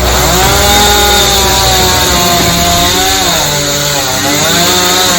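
Chainsaw running at high revs, cutting into the trunk of a fallen kluwih tree. Its pitch sags and recovers twice in the second half as the chain bogs in the wood.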